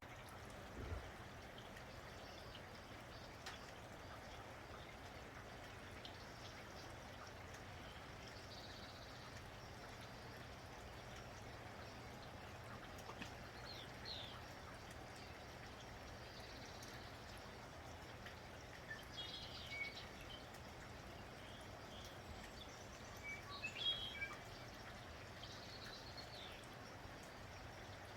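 Light rain falling steadily, with small birds chirping now and then in short bursts of high calls, the loudest cluster about three-quarters of the way through.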